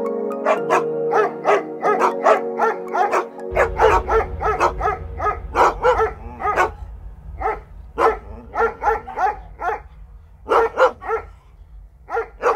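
A dog barking over and over, about two or three barks a second, with a short pause near the end. Background music fades out in the first few seconds.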